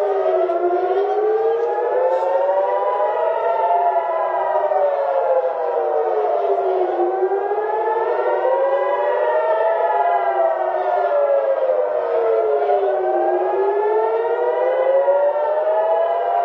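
Several civil-defence air-raid sirens wailing at once, each rising and falling slowly in pitch about every six seconds, their cycles out of step with each other: an air-raid alert warning of incoming fire.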